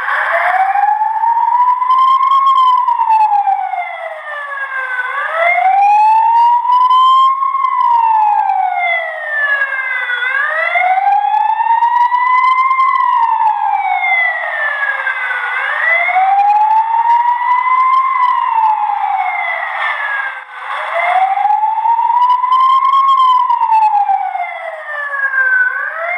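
A 12-volt alarm horn speaker playing a police-siren sound effect: a slow wail that rises and falls in pitch about once every five seconds. It is very loud, reading about 120 dB on a sound meter.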